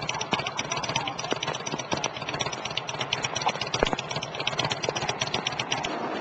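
An idling engine with a fast, even ticking clatter and a few louder knocks.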